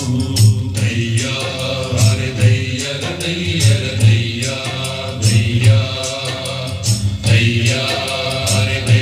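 Music played back from a cassette on a Technics M-215 deck: a chanted vocal over a steady bass beat.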